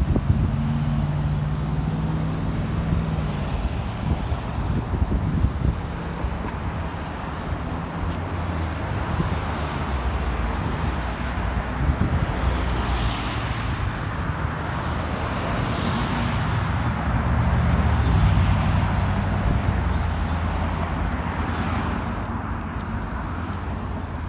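Road traffic on a multi-lane road: a steady rumble of engines and tyres, with cars hissing past one after another.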